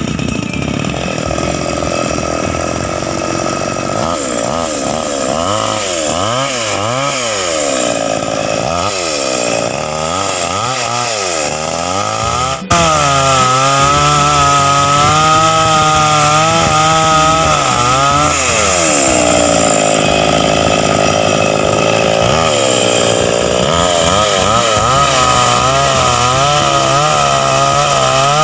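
Petrol chainsaw engine running, revving up and down repeatedly. About halfway in it jumps suddenly to louder, sustained high revs whose pitch wavers, and it holds there to the end.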